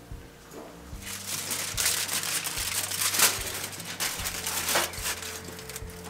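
Aluminium foil crinkling and rustling as it is spread and smoothed over a braai grill, a busy crackly run of a few seconds with a few sharper crackles.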